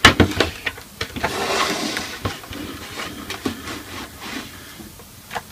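Handling noise from a valve radio's cabinet and chassis being put together: a quick run of sharp knocks and clicks at the start, a brief scrape, then scattered clicks.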